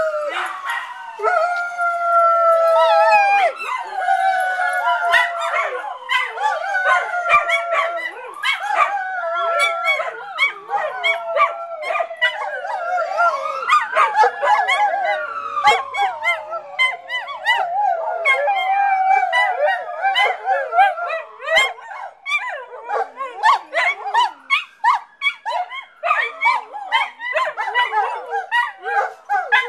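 A pack of dogs howling along with a fire engine siren, whose wail rises and falls every four or five seconds. A terrier adds short, rapid staccato yaps, which grow thicker in the second half.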